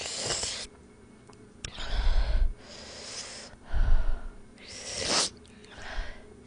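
A woman's breathy huffs and hisses into a close microphone while eating fiery-hot Buldak stir-fried noodles, about six short bursts. The two loudest, about two and four seconds in, thump on the mic.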